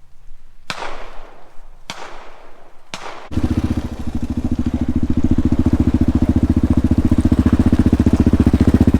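Three sharp clunks about a second apart, then an engine starts suddenly about three seconds in and runs steadily with a fast, even firing pulse, growing a little louder.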